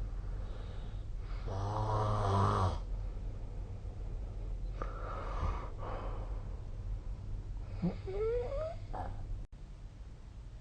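A sleeping person snoring: one loud, buzzing snore about a second in, a fainter breath around the middle, then a short squeaky sound rising in pitch near the end.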